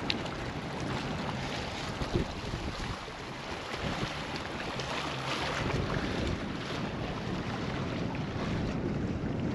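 Steady wind blowing across the microphone, an even rushing noise with small irregular buffets.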